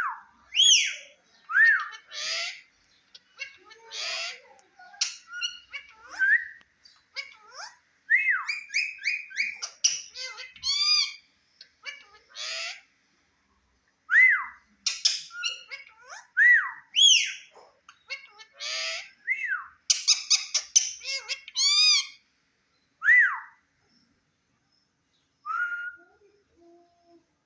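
Indian ringneck parakeet calling: a string of short whistled notes that rise and fall, mixed with harsh squawks and quick chattering runs, with brief pauses between them.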